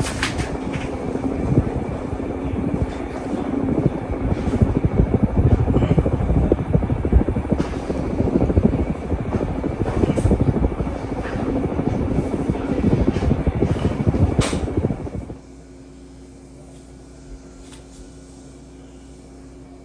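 Hampton Bay Gazebo II Plus ceiling fan running, its airflow buffeting the microphone with a rough low rumble and scattered clicks. About fifteen seconds in, the rumble cuts off suddenly, leaving a steady, quieter low hum.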